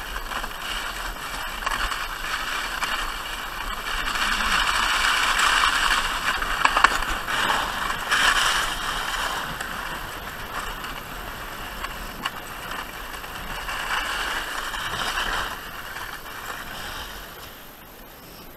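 A sledge sliding fast over packed snow, a continuous scraping hiss. It grows louder about four seconds in and again around fourteen seconds, then dies away near the end as it slows.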